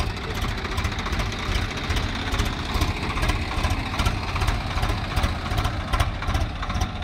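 Swaraj tractors' diesel engines idling steadily with an even low pulsing.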